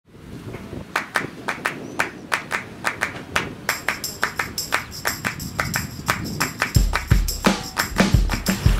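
Background music with a steady beat of sharp percussive hits, about four a second. More instruments join after a few seconds, and heavy bass drum beats come in near the end.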